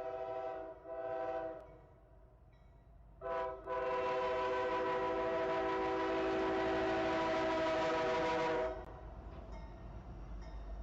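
Norfolk Southern diesel locomotive's multi-chime air horn sounding. One blast ends just under a second in and a short blast follows. After a quiet gap of under two seconds comes a brief blast that runs into a long one of about five seconds. A low rumble of the train follows.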